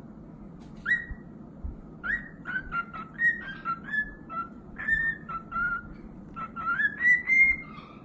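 Cockatiel whistling a tune: one short note, then a quick run of short, clear notes stepping up and down in pitch, ending on a longer rising note.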